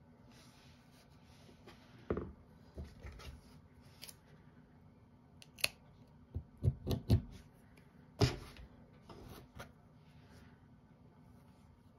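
Scissors cutting the yarn tail of a finished crochet piece: a run of sharp snips and clicks, the loudest a little past the middle, with light rustling of yarn being handled.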